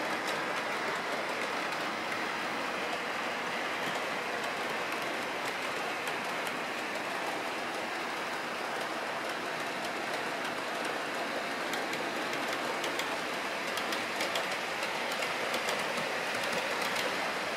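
OO gauge model trains running on the layout's track: a steady rolling hiss of wheels and motors, with wheels clicking over the rail joints, more often in the second half.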